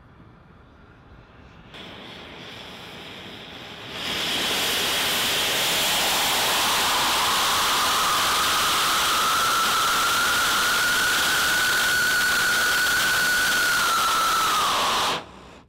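Small oxygen-fed hybrid rocket motor firing through a 3D-printed steel aerospike nozzle: a faint hiss jumps to a loud steady rushing roar about four seconds in, with a whistling tone that rises and then holds, and the roar cuts off suddenly near the end. The steel nozzle is melting in the exhaust, throwing sparks.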